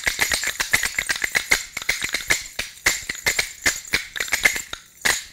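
Dasakathia wooden clappers (kathi) clacking in a fast, dense run of sharp clicks that stops suddenly at the end.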